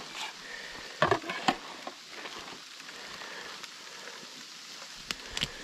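Steady hiss of hail and rain falling on brush and the forest floor, with a cluster of sharp knocks about a second in and a few more near the end.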